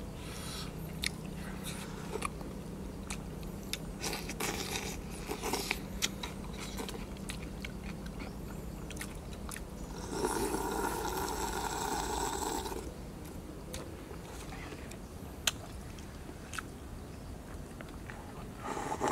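Close-up eating sounds: chewing with many small wet clicks and lip smacks. A long slurp of soup from a coconut-shell bowl comes about halfway through, and another slurp begins right at the end.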